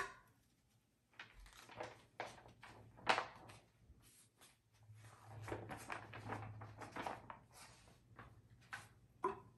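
Paper sheet music on a music stand being turned and handled: a string of faint, short rustles and taps, with a sharp click right at the start.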